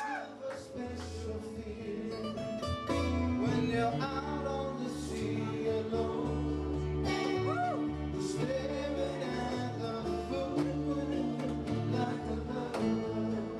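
Music led by plucked guitar over a steady low bass line.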